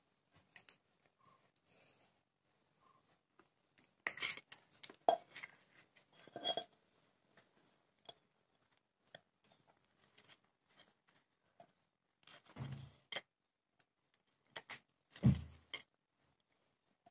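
Kitchen utensils and dishes being handled: scattered light clinks and knocks, with a couple of duller thuds in the second half.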